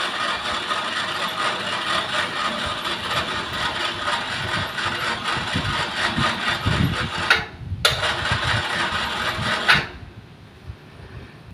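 Horizontal wood saw machine running loudly and steadily. It cuts out briefly about seven seconds in, starts again, then stops near ten seconds in.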